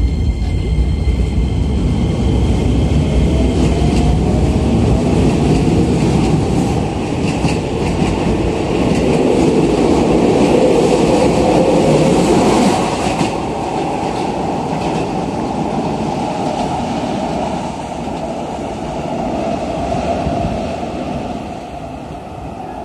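Keisei new 3000 series electric commuter train pulling out of the station. Its motor whine rises in pitch as it speeds up, and the wheels clack over the rail joints as the cars roll past. The sound drops away about thirteen seconds in, as the last car leaves, and then fades.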